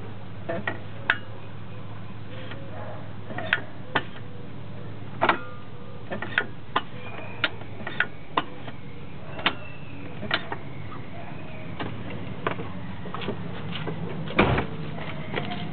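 Irregular sharp clicks and knocks, over a steady low hum, from the clutch and gearbox of a BMW E30 being worked; its clutch disc sticks to the flywheel. The loudest knock comes near the end.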